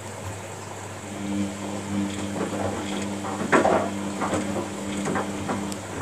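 Washing machine mid-wash: a motor hum starts about a second in and stops shortly before the end, with water sloshing in the turning drum in several swishes, the loudest about halfway through.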